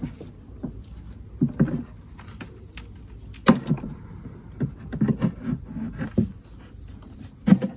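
Flat metal hive tool prying a wooden frame loose in a beehive box: scattered clicks, scrapes and short creaks of wood, with a few sharper knocks.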